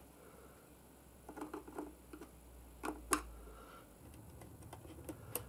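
Faint, light plastic clicks and taps from the Schuberth C5 helmet's visor pivot mechanism being worked by hand. The two sharpest clicks come about three seconds in, with fainter ticks around them.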